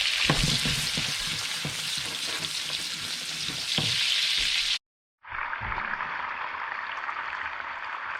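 Turbot fillet sizzling hard in a frying pan with butter and lemon juice, with a few light knocks. The sound cuts out abruptly about five seconds in, then the sizzling resumes, duller and less bright.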